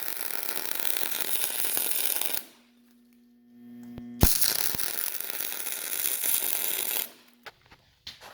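Power driver running self-tapping screws into the metal frame, two runs of about three seconds each with a short pause between.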